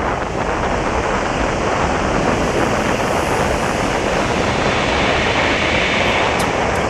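Steady wind rushing over the microphone of a camera riding along on a moving road bike.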